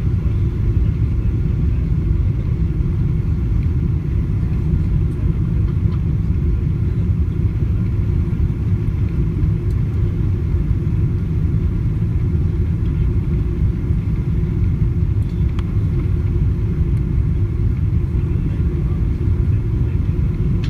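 Steady low rumble of cabin noise inside a Boeing 777-200 airliner on its descent to land: engine and airflow noise, with a faint steady hum above it.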